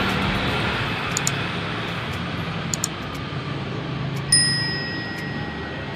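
Steady road-traffic noise with a low engine hum. About four seconds in, a single bright metallic ding, like a small bell, is struck and rings on for over a second.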